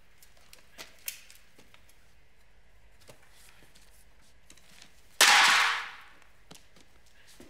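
A clipboard swatted hard at a fly: one loud slap about five seconds in, trailing off over most of a second in a large hard-walled room, after a few light taps and rustles.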